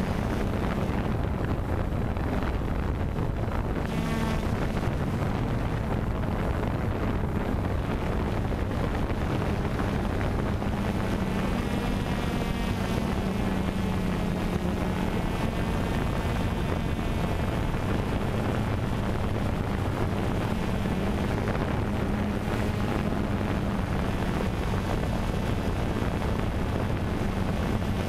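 DJI Phantom 2 quadcopter's motors and propellers humming steadily, recorded by the camera on the drone itself, with wind rushing over the microphone.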